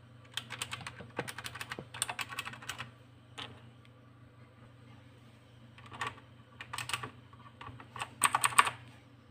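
Keys pressed on a mechanical keyboard with Outemu blue switches: runs of quick sharp clicks in several bursts, with a pause in the middle and the loudest burst near the end.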